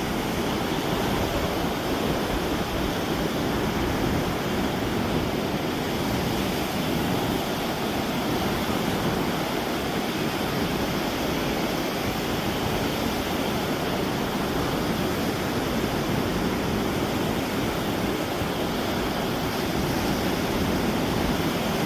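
Ocean surf washing in a steady, unbroken rush.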